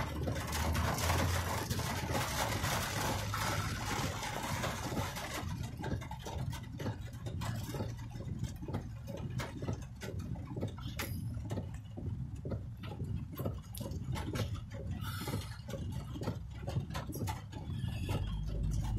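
Heavy rain pattering on a car's roof and windshield, heard inside the cabin over a low engine and road rumble. A dense hiss for the first few seconds thins out into many separate drop strikes.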